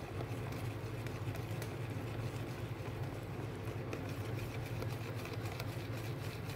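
Electric hand mixer running steadily, its beaters churning flour and wet ingredients into banana cake batter in a plastic bowl.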